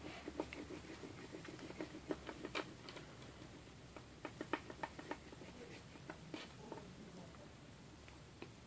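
Hand rolling soft white clay into a thin snake on a wooden tabletop: faint, irregular little taps and rubs of fingers and nails against the wood, thinning out near the end.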